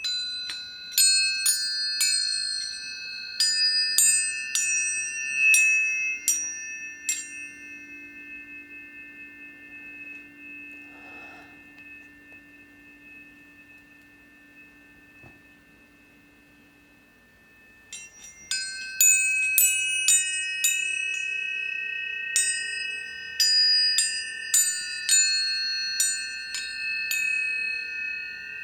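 Tuning forks struck one after another, each strike a bright metallic ping that settles into a steady pure ringing tone, several forks sounding together. A run of strikes in the first seven seconds dies away slowly, then a second run of strikes begins about eighteen seconds in.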